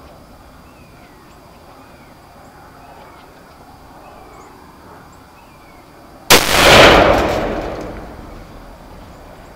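A single gunshot about six seconds in: a sharp crack followed by a long tail that fades away over about two seconds.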